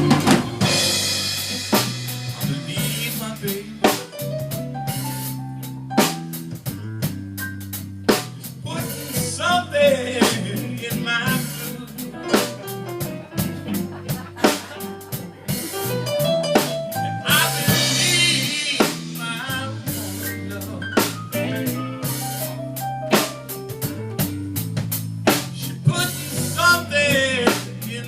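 Band music: a drum kit keeps a steady beat over a bass line and a melody.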